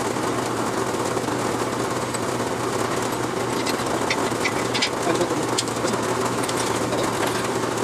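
A steady mechanical hum from a running motor, with scattered light clicks.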